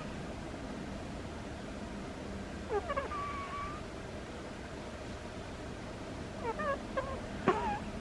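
A sleeping cat's squeaky snores: a drawn-out, wavering squeak about three seconds in, then a cluster of short squeaks near the end.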